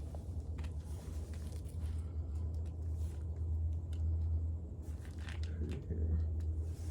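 Light clicks and rustling from handling asphalt roof shingles and loose roofing nails, over a steady low rumble.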